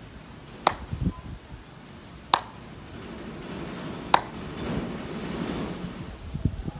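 Three sharp hand claps, evenly spaced about two seconds apart, as hands strike together while signing. Steady wind noise on the microphone runs under them, with low rumbles about a second in and near the end.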